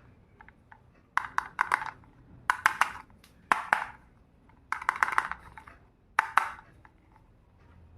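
Small hard pieces of a miniature toy kitchen set clicking and clattering as they are handled, in five short bursts of quick taps.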